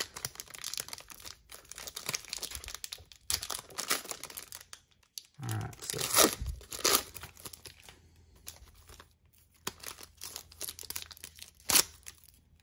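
Foil wrapper of a 2020 Topps Inception baseball card pack crinkling and tearing as it is peeled open by hand. The crackling is irregular, with sharper loud crackles about six seconds in and again near the end.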